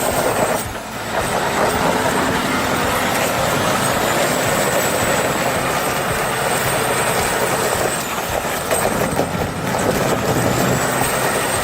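MAZ 6x6 truck driving, its engine running steadily, with a short dip in loudness about a second in.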